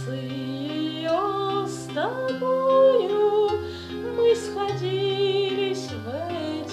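A woman singing a slow Russian Gypsy romance melody with vibrato and sliding notes, over an instrumental accompaniment of held bass notes.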